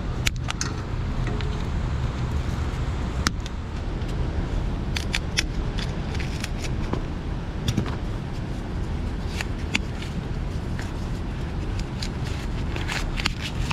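Sharp clicks and snaps, scattered about a dozen times, from diagonal cutters snipping and hands working among wiring and pipe insulation inside an air-conditioner condensing unit. A steady low rumble runs underneath.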